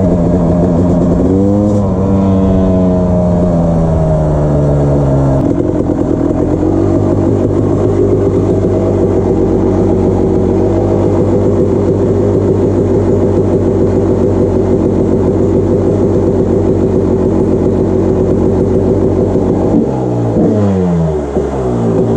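1999 Honda CR250 two-stroke single-cylinder dirt bike engine. For the first five seconds or so the bike is ridden and the pitch rises and falls with the throttle. Then it runs steadily while standing, and near the end the pitch sweeps down once before settling.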